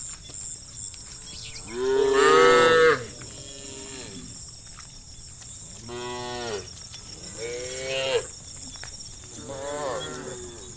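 Cattle mooing, four separate moos from several cows, the loudest about two seconds in, over a steady high-pitched hiss.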